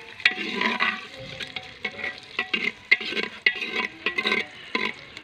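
A long steel ladle stirring sliced onions in hot ghee in a clay handi, scraping and knocking against the pot in repeated, irregular strokes, over the sizzle of the onions frying.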